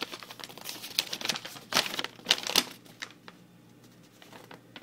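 Paper rustling and crinkling as it is handled, with many quick crackles for about three seconds, then fainter rustling.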